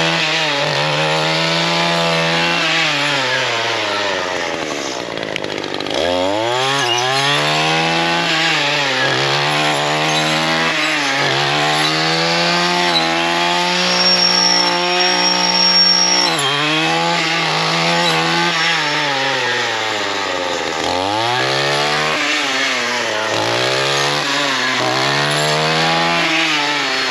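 Gas string trimmer fitted with a saw blade cutting through privet and wisteria brush. Its engine revs up and drops back again and again as the throttle is worked and the blade bites into stems, with a few longer held revs in between.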